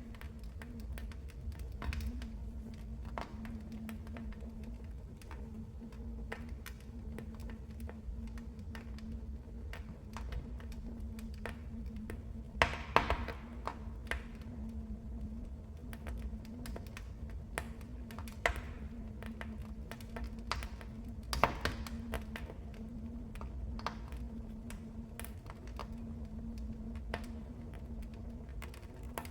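Wood fire in a fireplace crackling, with a steady low rumble under irregular sharp pops and snaps, two of them much louder, about halfway through and about three quarters of the way through.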